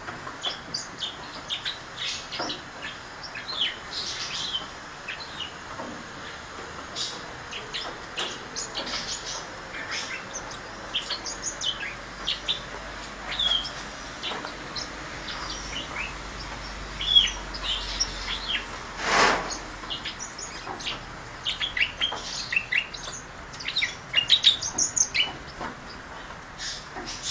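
A flock of grass parakeets chirping and twittering. Many short, high chirps follow one another, with a few louder calls in the second half.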